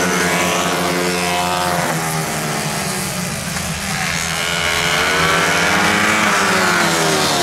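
Several Honda CG-class single-cylinder four-stroke racing motorcycles at high revs, their engine notes overlapping. The sound dips about halfway through, then climbs in pitch as the bikes accelerate.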